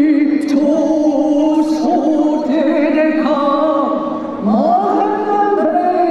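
Singing: a voice holding long, wavering notes that shift pitch every second or two.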